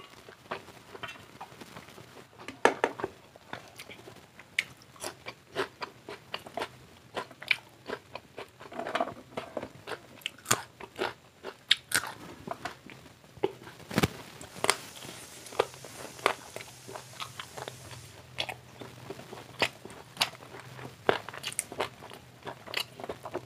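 Close-miked eating of fried chicken: crunchy bites and chewing with sharp wet mouth clicks, a few a second. One heavier knock about 14 seconds in.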